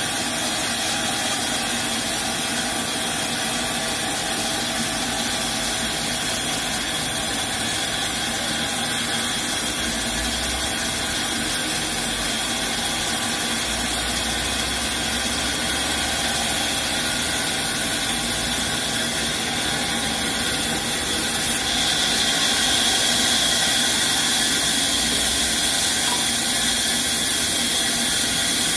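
Sawmill band saw running and ripping a mahogany slab as it is pushed through by hand: a steady hiss and whine of the blade in the wood over the hum of the drive, getting slightly louder about three quarters of the way through.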